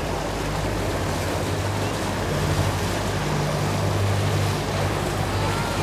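Boat motor running steadily at a low hum, under a constant wash of wind and water noise.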